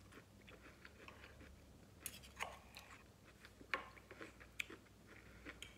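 Close-miked chewing of a mouthful of food, with a few sharp clicks and scrapes of a metal knife and fork against a wooden serving board.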